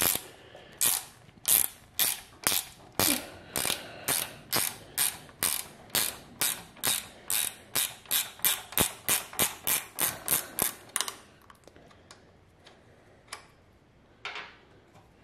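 Small socket ratchet clicking in quick back-and-forth strokes as it unscrews the curb feeler (lean indicator) bolt from a motorcycle footpeg. The strokes quicken from about two to about three a second and stop about eleven seconds in, followed by a couple of faint taps.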